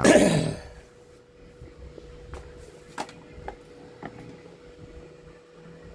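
A few faint, scattered clicks and taps of small parts or tools being handled at a workbench, over a faint steady tone.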